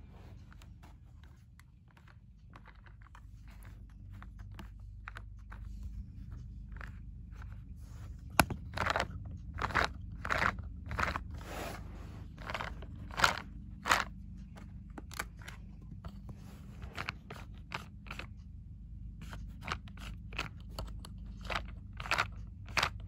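A series of short, irregular crunching and scraping sounds, a few a second, growing louder about eight seconds in, over a low steady hum.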